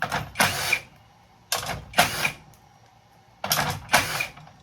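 Handheld power drill or driver run in short trigger bursts, three pairs of quick runs with a whine in each.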